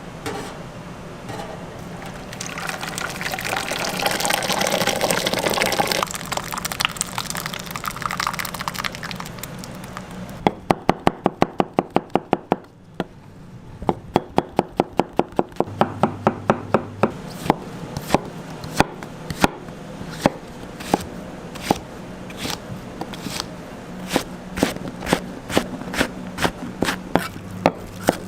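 A hissing rush that rises over a few seconds, then a knife chopping on a cutting board: quick, sharp, regular strokes about six a second, later slower and more uneven.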